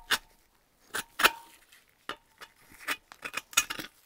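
Hand scraper scraping and clinking against the liner seats of a Reliant aluminium engine block in about nine short, separate strokes, a couple of them leaving a brief metallic ring. This is the liner seats being cleaned of dirt and corrosion so the new cylinder liners will seal.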